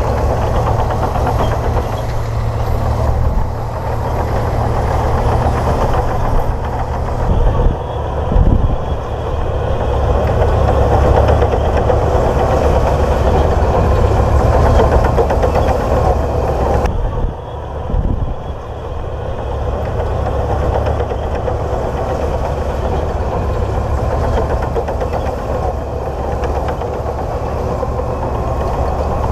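Komatsu D58P bulldozer's diesel engine running steadily, with a couple of brief low thumps partway through.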